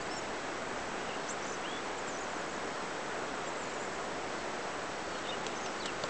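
Steady rushing of a river flowing over shallow rapids, with a few faint, high bird chirps over it.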